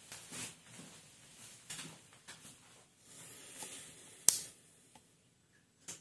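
Soft rustling and handling noise from a person moving close to a camera and handling it, with one sharp click a little past four seconds in and a smaller one near the end.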